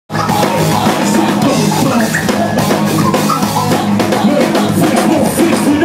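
Live hip hop band playing loudly: an acoustic drum kit beat with electric guitar and a sustained low bass line.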